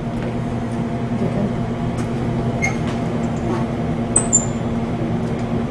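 A steady, even hum with several low pitched lines, and a few faint clicks and taps over it.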